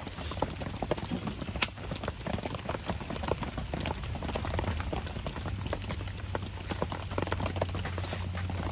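Campfire crackling: a dense, irregular patter of small pops and ticks, with one sharp crack about one and a half seconds in.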